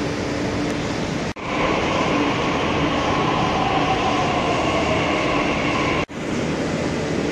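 Delhi Metro train pulling into the platform: steady wheel and running rumble with a motor whine that falls slowly in pitch as the train slows. The sound drops out sharply twice, briefly.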